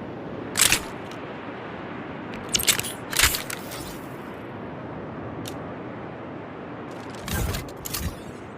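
P-35 re-educator dart gun sound effect: a handful of short, sharp clicks and snaps spaced irregularly over a steady hiss, much quieter than the shots around them.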